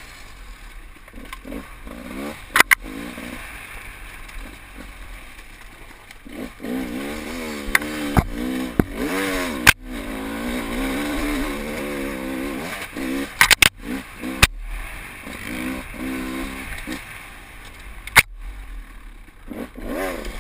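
Off-road enduro motorcycle engine revving up and down as it rides, with several sharp knocks along the way.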